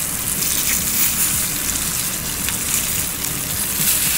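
Hot spiced oil sizzling steadily in a frying pan as stuffed brinjals are set into it one by one, with a few faint pops.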